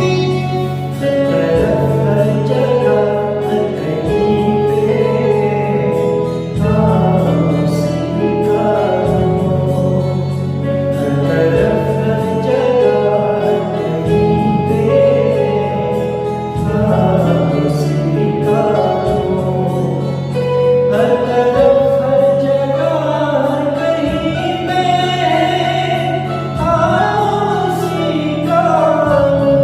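Singing over instrumental accompaniment with a steady sustained low drone, sung by a group.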